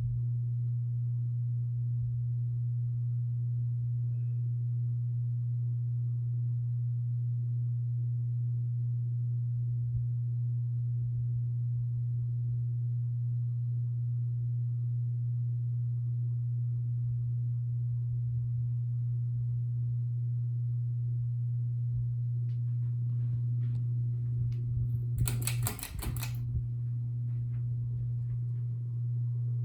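Hampton Bay Minuet II ceiling fan running, with a steady low motor hum and faint ticking. A brief clattering burst comes near the end.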